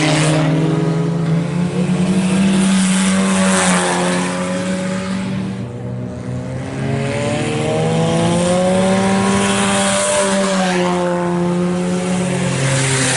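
Several IMCA Sport Compact race cars' four-cylinder engines running on track, their pitches rising and falling and overlapping as the cars accelerate and pass, with a brief dip in loudness about six seconds in.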